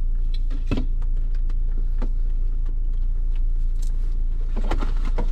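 Off-road 4x4's engine running with a steady low drone as it crawls over rough trail, heard from inside the cab, with scattered knocks and clicks from the vehicle jolting over the terrain, a cluster of them near the end.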